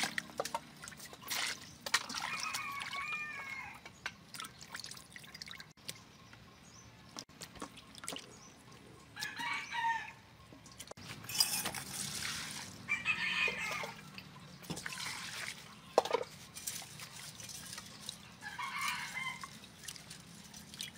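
A rooster crows about four times, each call lasting a second or so. Under the calls, water splashes and drips as squid are rinsed and handled in a steel bowl, with scattered clicks and knocks.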